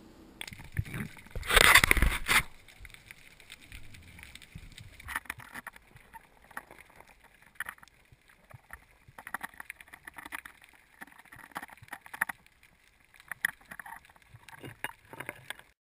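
Underwater sound picked up through a camera's waterproof housing: a loud rushing burst about two seconds in, then quiet water with many scattered faint clicks, crackles and scrapes while a gloved hand works among the rocks. The sound cuts off suddenly near the end.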